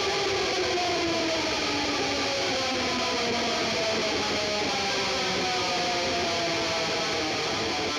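Music: a distorted electric guitar holds a dense chord whose pitch slowly sinks.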